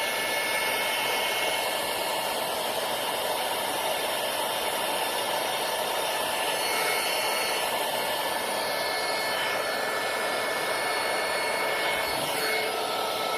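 Electric heat gun blowing steadily, with a thin whine over the rush of air, as it shrinks heat-shrink tubing over a freshly soldered wire splice.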